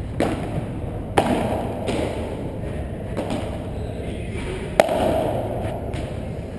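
Padel rally: the ball popping off solid padel rackets and bouncing on the court, several sharp hits about a second or so apart, echoing in a large indoor hall, the loudest nearly five seconds in.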